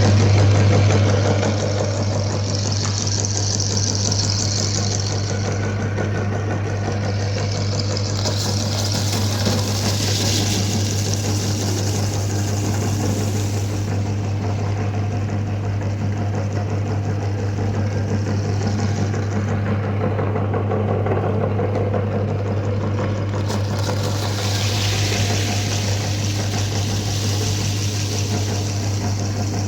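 Electric meat grinder running with a steady motor hum and a grainy grinding noise over it, the hiss swelling and fading several times as it works through chocolate Oreo cookies.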